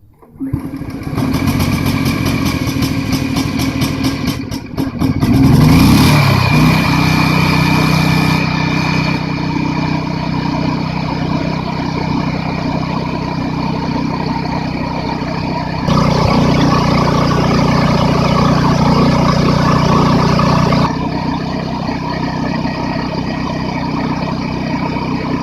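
Engine-driven high-pressure washer running loudly, its engine speeding up about five seconds in and then holding steady. It grows louder for about five seconds from around sixteen seconds in, then drops back.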